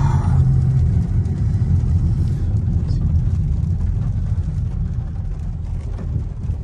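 Volkswagen sedan's engine and tyre rumble heard from inside the cabin while driving slowly. A steady engine hum drops away about a second in, and the rumble eases as the car slows.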